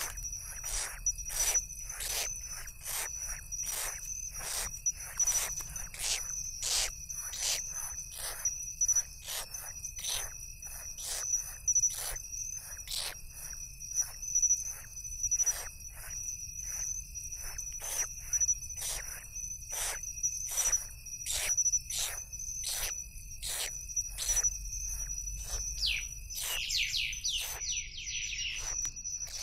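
Owl chicks at the nest give short rasping begging hisses over and over, about one or two a second, while insects trill steadily in the grass. Near the end comes a quick run of high chirping calls.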